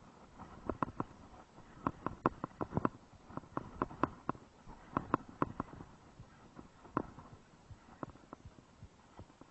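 Large saltwater spinning reel cranked to retrieve a topwater lure, with a run of short, irregular knocks and clicks, about two to four a second, close to the microphone.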